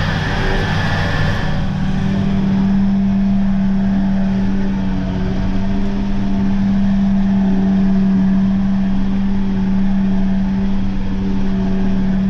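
CASE Luxxum 120 tractor's four-cylinder diesel and mower drive running steadily, heard from inside the cab as a loud, even drone. About two seconds in, the hissing noise above it drops away and the steady hum becomes stronger.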